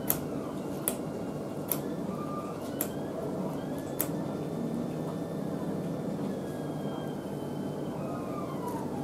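Stanley knife shaving the back of a primed model tunnel brickwork piece, five sharp cutting clicks over the first four seconds, over a steady low background rumble.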